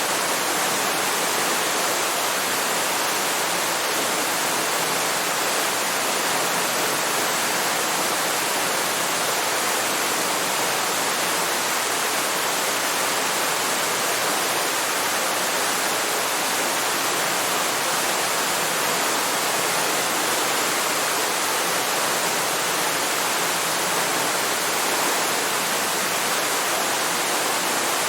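Waterfall: a steady, unbroken rush of falling water with no changes or separate events.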